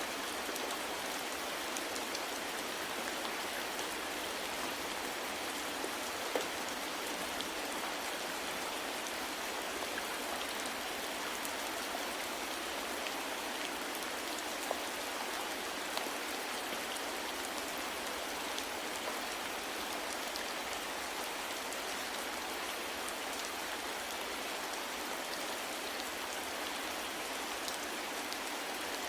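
Steady soft rain falling, an even hiss with a few separate drops now and then.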